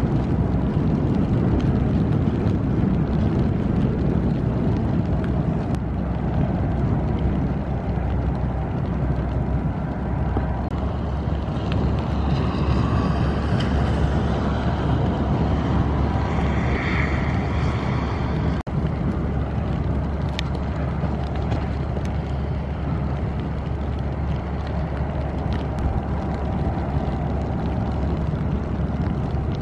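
Steady low rumble of a passing ship's engine and its wash across the water.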